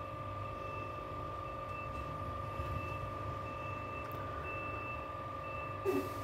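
Three-phase industrial door motor running steadily as it drives toward its down limit: a low hum with a steady whine. A faint short high beep repeats about once a second.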